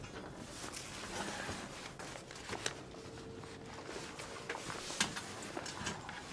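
Rustling and scattered small knocks as a bag is pulled out of an aircraft overhead luggage bin, with sharper knocks about two and a half and five seconds in.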